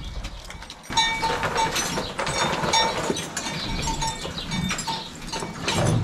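Dairy cows in a tie-stall barn at the feed alley, with animal calls and many short knocks and rustles as they eat, starting suddenly about a second in.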